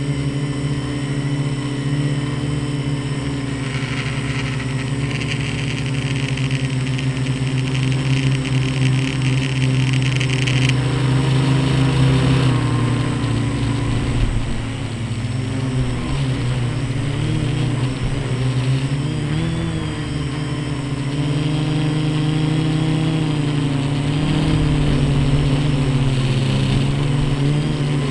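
Quadcopter electric motors and propellers whirring steadily, the pitch wavering up and down as the throttle changes; a higher whine joins in for several seconds early on.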